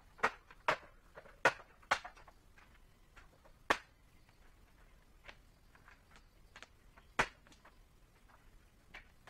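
A series of sharp knocks: four loud ones in quick succession in the first two seconds, then single ones a couple of seconds apart, with fainter taps between.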